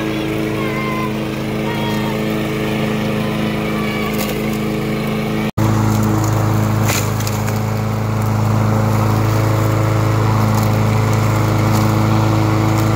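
Craftsman M260 walk-behind lawn mower engine running steadily. It cuts out for an instant about five and a half seconds in and then runs on louder.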